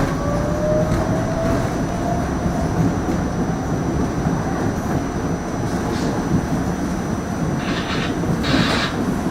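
R68 subway car running on the rails: a steady low rumble of wheels on track, with a motor whine rising slowly in pitch over the first few seconds as the train picks up speed, and a few sharp clicks from the wheels.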